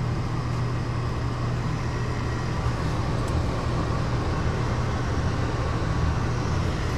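Gas furnace's induced-draft motor running with a steady low hum. The gas valve has no power, so the burner stays unlit: the burner's temperature limit sensor reads open, which the technician takes for a failed sensor.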